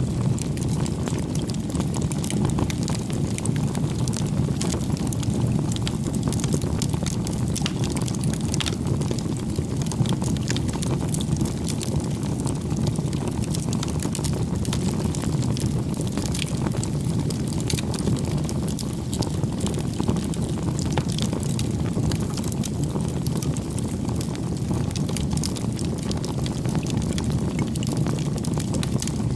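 Wood fire burning with a steady low rumble of flames and a constant scatter of small crackles and pops.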